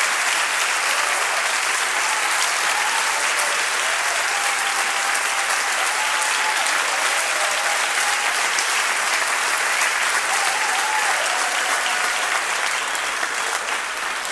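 Concert audience applauding steadily, a dense crackle of many hands clapping with faint voices calling out, beginning to die down near the end.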